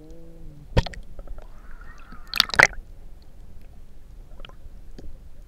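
Water sloshing and gurgling against a camera held under the water, with sharp clicks and knocks; a single click under a second in, and the loudest pair about two and a half seconds in.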